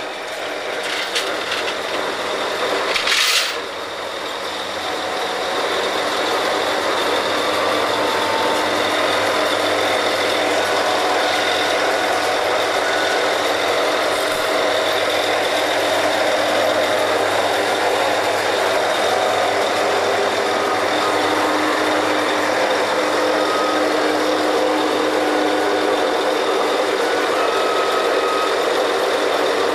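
Oil drilling rig machinery running steadily with drilling under way, a constant mechanical drone with a few steady whining tones. About three seconds in there is a short, loud hiss, and then the noise builds and holds steady.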